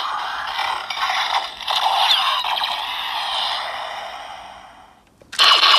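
Electronic finisher sound effects from a Kamen Rider Shooting Wolf toy transformation belt, played through its small built-in speaker: tinny, with no bass. The effects fade away over the second half, then a loud new burst starts near the end.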